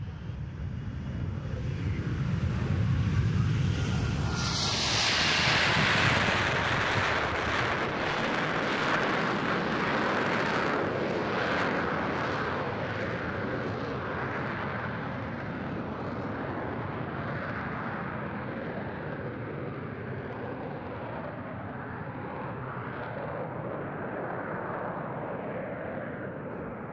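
F-35B's Pratt & Whitney F135 jet engine, with the lift fan engaged, during a short takeoff roll. A low rumble builds over the first few seconds, then jumps to a louder, harsher roar about four to five seconds in as the engine goes to military power for the takeoff. The roar then holds steady and slowly fades as the jet climbs away.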